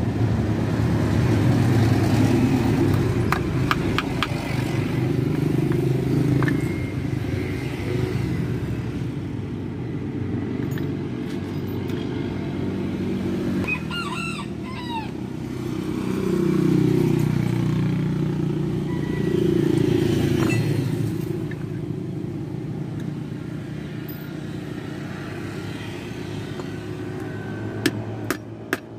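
Low rumble of passing motor vehicles, swelling twice in the second half, with a rooster crowing once about halfway through and a few sharp clicks.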